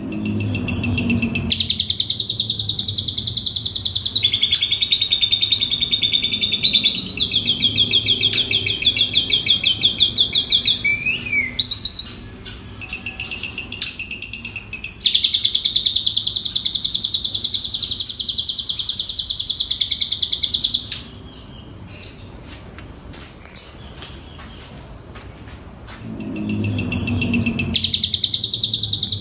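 Asian pied starling (jalak suren) singing long bursts of fast, buzzy chattering trills, a song that carries mimicked phrases of other birds. The trills break off twice: briefly about twelve seconds in, then for a few seconds about two-thirds of the way through.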